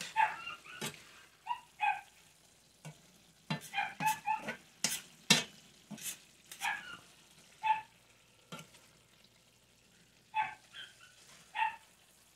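A spatula scraping and knocking in a cast-iron skillet as ground beef, onions and bell peppers are stirred, while a dog outside barks several times.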